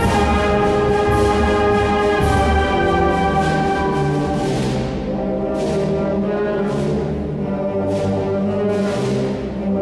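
Brass-led concert band playing sustained, held chords, with a few short sharp strikes through the passage.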